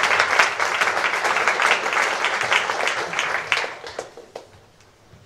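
Audience applauding, a dense patter of many hands clapping that thins out and dies away about four seconds in.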